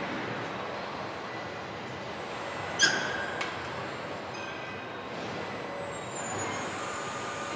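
Car assembly-line machinery noise: a steady mechanical hiss with a sharp metal clank about three seconds in that rings briefly, a smaller click just after, and a high steady whine coming in near the end.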